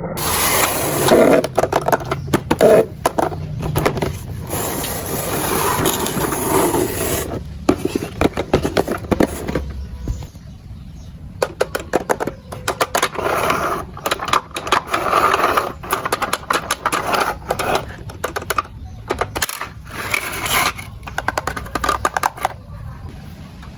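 Toy packaging being handled and opened: irregular scraping and rustling with many small clicks and taps of plastic.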